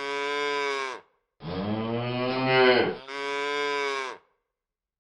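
A cow mooing three times, each moo a long drawn-out call, the middle one the longest and loudest.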